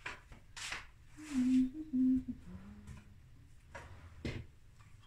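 A person humming a few short notes, the loudest about a second and a half in, ending on a lower note. Soft rustles and a light knock around the humming.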